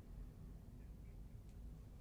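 Near silence: low room hum, with one faint tick about one and a half seconds in.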